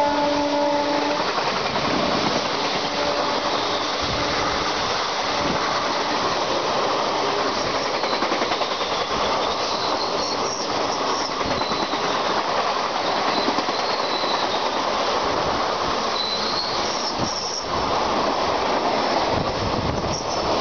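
Two electric trains running side by side, heard from the open door of the moving EMU. The horn of the passing electric locomotive dips slightly in pitch and ends about a second in. After that comes the steady rush and clatter of the overtaking passenger coaches going past close alongside, with thin high wheel squeals now and then.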